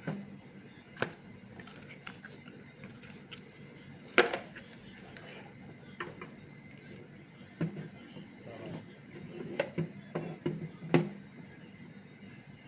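Scattered clicks and knocks of a vegetable cutter and its packaging being handled. The loudest knock comes about four seconds in, and a quick run of knocks follows near the end.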